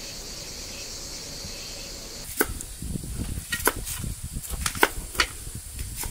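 A steady high hiss-like buzz for about two seconds, which stops abruptly. A run of sharp knocks and clicks at uneven intervals follows, several of them loud.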